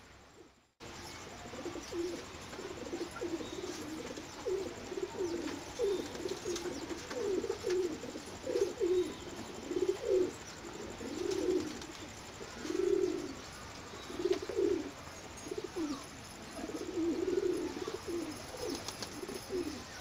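Pigeons cooing, low swelling calls repeated about once a second, starting about a second in. Faint high chirps of a sparrow flock sound above them.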